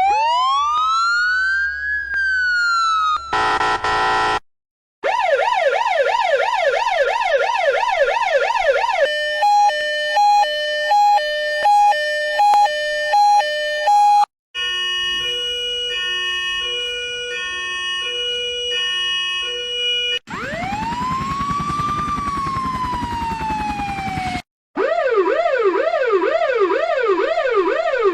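A string of different ambulance sirens played one after another with short breaks between them. First a wail that sweeps up and then rises and falls, then a brief horn blast, then a fast up-and-down yelp, then a two-tone hi-lo siren. After that come a stepped pattern of electronic tones, a single long wail that rises and then slowly falls, and another fast yelp.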